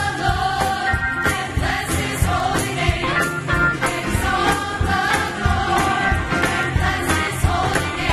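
Church choir singing with orchestral accompaniment and a steady beat.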